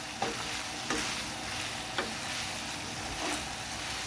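Cut-up pork chop sizzling in oil in a pan while a utensil stirs it, with four clicks of the utensil against the pan, about one a second.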